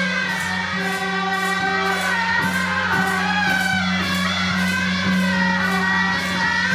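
Music with singing over a steady beat, about two beats a second.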